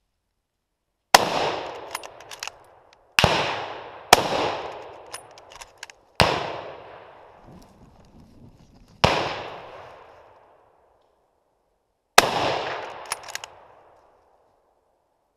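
Six rifle shots fired at a wild boar, irregularly spaced one to three seconds apart, each followed by a long echoing tail.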